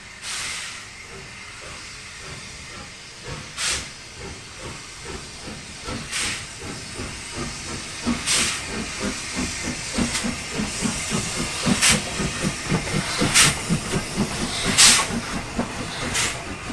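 Three-cylinder Schools-class 4-4-0 steam locomotive No. 926 Repton getting under way, with loud bursts of steam hissing from its open cylinder drain cocks. The bursts come closer together as it gathers speed, over a quickening rhythmic beat from about halfway through.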